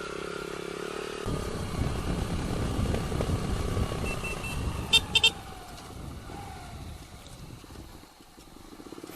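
Motorcycle engines running, with a louder low rumble coming in a little over a second in and easing off after about five seconds. Two short sharp beeps, like a horn toot, sound about five seconds in.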